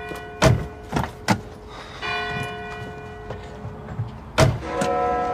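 Church bell tolling: three strokes about two and a half seconds apart, each ringing on and fading slowly. Between the strokes come three sharp, heavy thuds.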